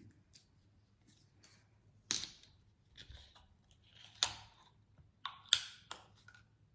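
Plastic drink bottle being handled and opened: a few short, separate clicks and scrapes.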